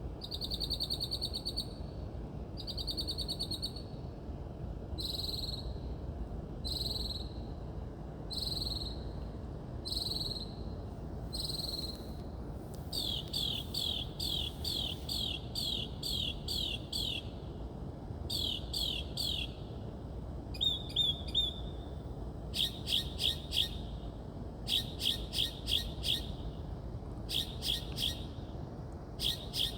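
A songbird singing a long, varied song made of different phrases, each repeated several times before it switches to the next. It starts with a pair of buzzy notes, then a string of down-slurred whistles about once a second, then fast runs of sharp notes, all over a steady low background hum.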